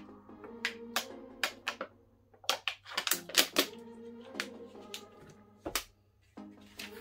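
Plastic water bottle crackling in the hand in a run of sharp clicks as it is drunk from and its cap is twisted on, then a single dull thump as it is set down near the end, over background music.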